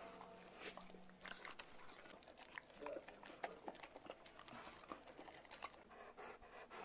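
Husky eating chunks of meat from a stainless steel bowl: faint chewing and biting with many scattered short clicks.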